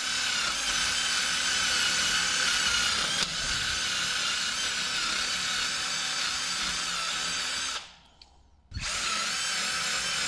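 Compact cordless power tool with a hub-cleaning bit spinning against the rusty steel face of a BMW wheel hub, scouring off rust before a new brake disc is seated. It runs with a steady high-pitched whine, stops for about a second near eight seconds in, then starts up again.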